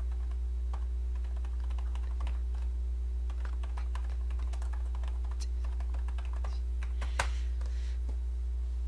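Typing on a computer keyboard: irregular key clicks, with one louder click about seven seconds in, over a steady low hum.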